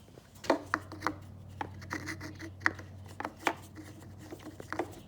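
Irregular clicks and knocks of a plastic air filter housing being handled and screwed back onto an air compressor's intake, over a faint low hum.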